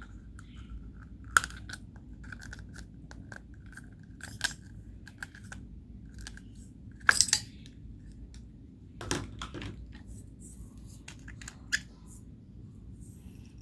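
Homemade slime being worked by hand, with scattered sharp clicks and pops, five of them loud, between fainter ticks.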